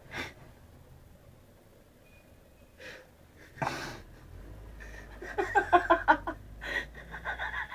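Stifled laughter: a few breathy snorts and puffs through the nose, then a burst of quick held-in giggles about five seconds in, with more snickering near the end.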